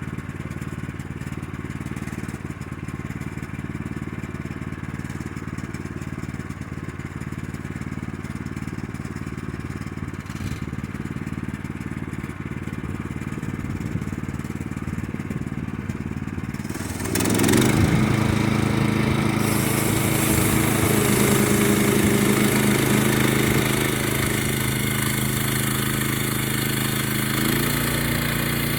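Portable bandsaw sawmill's gas engine running steadily. About two-thirds of the way through it jumps louder, with a harsh sawing noise over the engine that goes on to the end, as the band blade cuts into the log.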